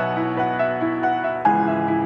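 Background music: a keyboard plays a repeating pattern of short high notes over held chords, with the chord changing about a second and a half in.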